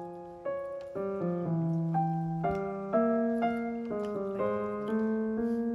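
Background piano music: a gentle melody of single notes struck about twice a second.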